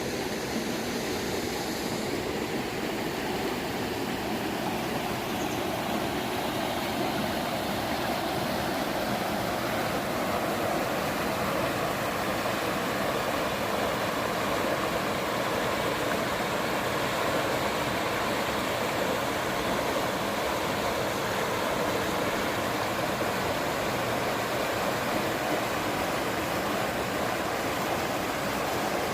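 Rushing water of a mountain stream or waterfall: a steady, even rush with no break.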